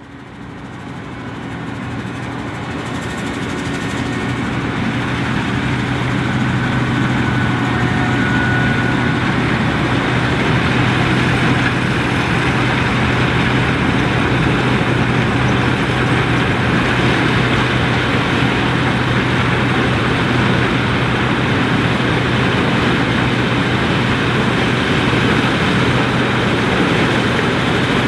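International 1480 Axial-Flow combine harvesting corn, its engine and threshing machinery running with a steady drone and a constant low hum. The sound fades up over the first few seconds.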